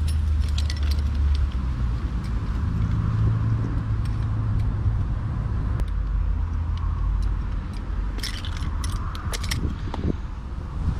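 Steady low rumble, with small rustles and clicks of hands and fishing tackle as a swallowed hook is worked out of a small fish. A quick cluster of sharp little clicks comes about eight to nine and a half seconds in.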